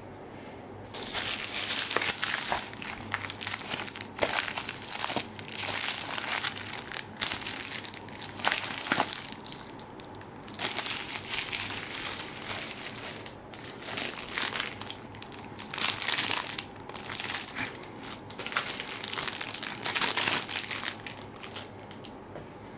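Clear plastic wrapping crinkling in repeated bursts as packs of photo paper are handled and laid out, with short pauses between handlings.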